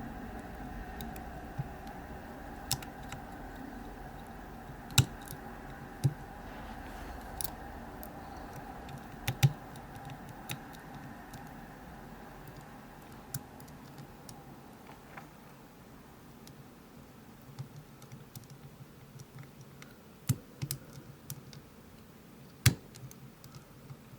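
Irregular small clicks and ticks of a pick working the pins of a seven-pin tubular padlock as they are felt for and pushed down, with a handful of sharper, louder clicks. A faint steady hum fades out over the first half.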